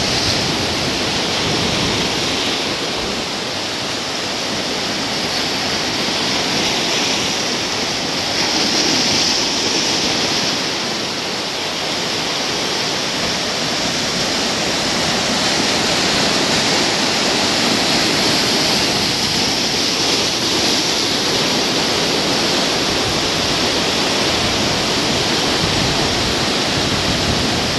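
Ocean surf breaking on a rocky shore and washing over boulders: a steady rushing hiss of foaming water that swells a little as waves surge in.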